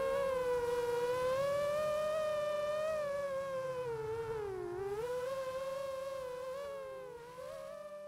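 FPV drone's motors humming, the pitch wavering and dipping twice with throttle changes, fading out near the end.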